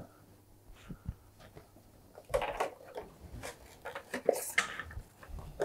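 Kitchen work sounds: scattered knocks and clatter of a knife and utensils on a wooden chopping board and metal bowl, with a brief rush of tap water a little over four seconds in.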